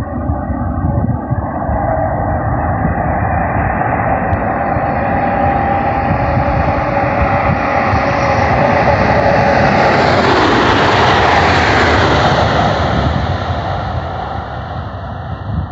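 ICE 1 high-speed trainset, running as a measuring train, passing by: its rushing noise builds, peaks about ten seconds in with a falling pitch sweep as it goes past, then fades as it runs away.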